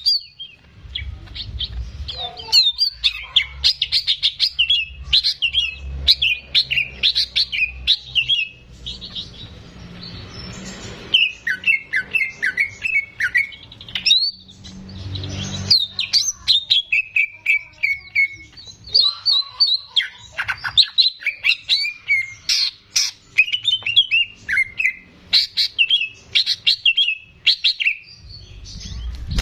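Cucak ijo (green leafbird) singing a fast, varied run of chirps and whistles in long phrases broken by short pauses.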